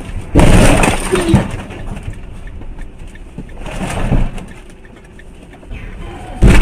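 Car collision: a sudden loud crash about a third of a second in that dies away over about a second, a shorter knock about a second later, and another sharp, loud hit near the end.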